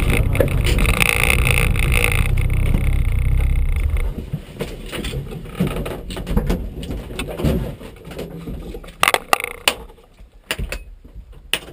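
Peugeot 106 Rallye rally car's engine running, heard from inside the cabin as the car comes to a stop, going quiet about four seconds in. After that come scattered sharp clicks and knocks, with a cluster near the end, as the doors are opened and the crew climbs out.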